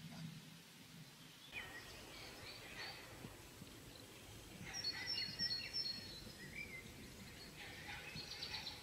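Wild songbirds singing and calling: several short high chirping and whistled phrases, the loudest a trilled phrase about five seconds in, over a low steady outdoor background.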